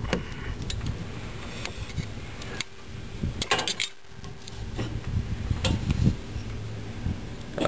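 Clicks and knocks of parts being handled on an opened washing machine, the loudest a few seconds in and again near the end, over a steady low hum.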